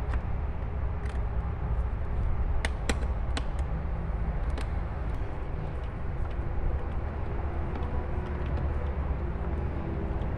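A screwdriver and screws working into a plastic toy-car panel, giving a few light clicks in the first half, over a steady low background rumble.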